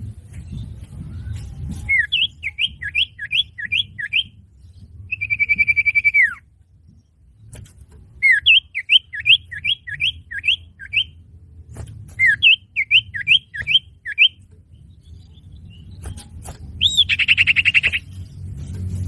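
Common iora (cipoh) lure calls: three runs of quick chirps, about three a second, a held whistle that drops in pitch at its end, and a short buzzy call near the end. A low rumble runs underneath.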